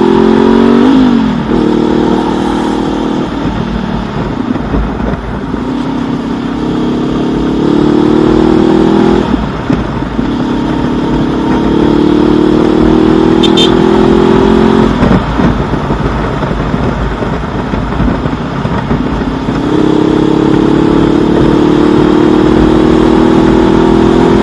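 2019 Honda CB500X's parallel-twin engine through an aftermarket Mivv Suono-style slip-on exhaust, accelerating on the road. Its pitch rises in several long pulls through the gears, falling away between pulls as the throttle closes or it shifts up.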